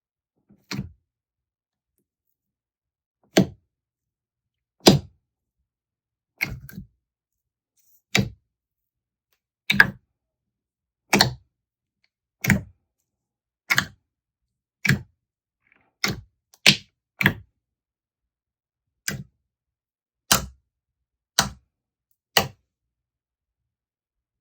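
Slime being handled: about seventeen short, sharp pops and smacks, roughly one every second or so, with silence between them.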